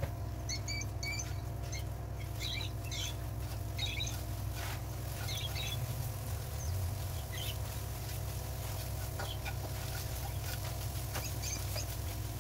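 A spatula stirring and scraping setting eggs around a nonstick wok, with light scrapes and taps. Short, high, squeaky chirps come in the first few seconds and again near the end. A steady low hum runs underneath.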